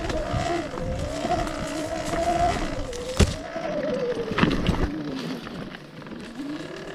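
Electric enduro motorcycle riding over rough ground: the motor's whine wavers up and down with speed over low rumble, with a sharp knock about three seconds in and another about a second later. The whine dips and fades toward the end as the bike slows.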